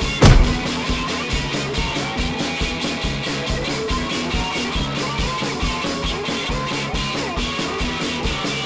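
Loud rock music: electric guitar over a fast, steady drum beat, with one sharp loud hit about a quarter of a second in.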